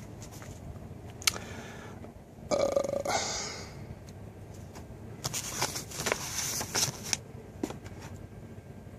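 Paper leaflets and packaging of an air compressor kit rustling and crinkling as they are handled, in scattered bursts that are busiest about five to seven seconds in. A short throaty sound comes about two and a half seconds in.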